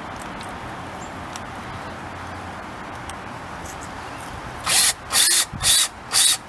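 DeWalt cordless drill driving a hose clamp's screw tight in short trigger bursts, about two a second, starting near the end.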